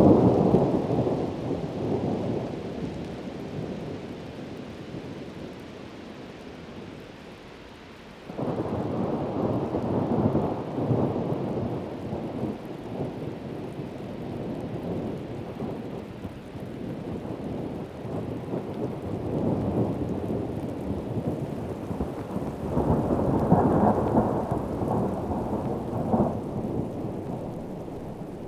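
Heavy rain with rolling thunder: a rumble fades away over the first several seconds, a new one breaks in suddenly about eight seconds in, and another swells up near the end.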